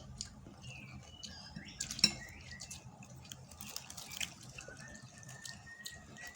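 Wet mouth sounds of someone eating chicken noodles, slurping and chewing, with many small clicks and one sharp click about two seconds in.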